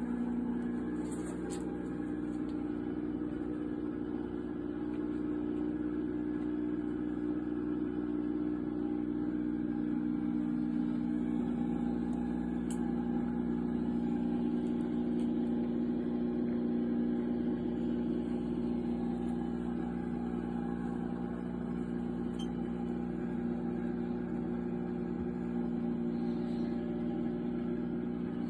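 Steady electric hum of a homemade incubator running: a low, even drone with no breaks.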